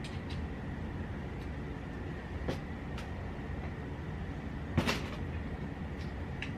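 A few sparse light clicks and one louder knock about five seconds in, from tools and parts being handled while the headset tension on the motorbike's fork is adjusted, over a steady low background hum.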